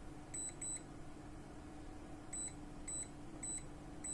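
Digital ultrasonic cleaner's control panel beeping as its buttons are pressed to set the bath temperature: about five short high beeps, two near the start and three more later, over a faint steady hum.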